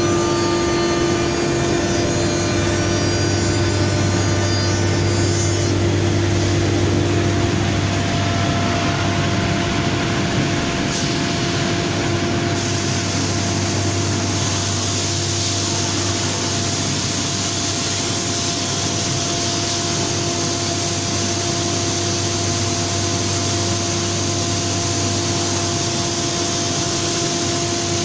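Biesse Rover C 6.50 CNC woodworking machining centre running with a steady hum. For about the first six seconds a whine rides over it as the spindle mills the wooden workpiece and throws up sawdust. A steady hiss comes in about halfway through.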